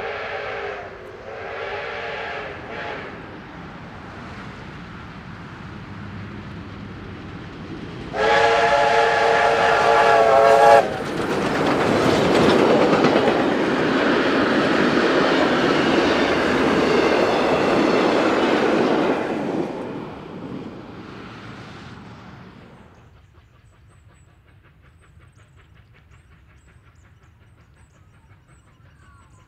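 Steam locomotive R761, a 4-6-4 Hudson, sounds its chime whistle in two short blasts and then one long blast of about two and a half seconds as it approaches. It then passes close by with its train, loud for about ten seconds, and the noise fades away over a few seconds.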